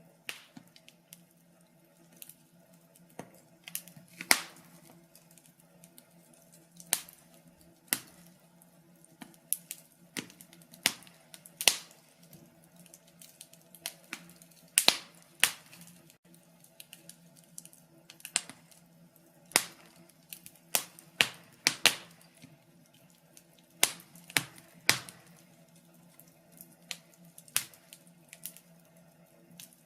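Wood fire crackling: irregular sharp pops and snaps of varying loudness, some close together in quick runs, over a faint steady low hum.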